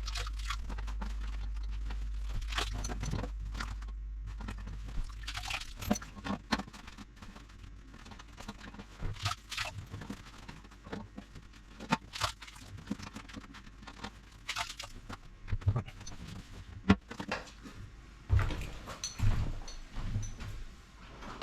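Scattered clicks, knocks and scrapes of hands and a container working inside a ceramic toilet cistern while its water is bailed out, with a low hum during the first few seconds.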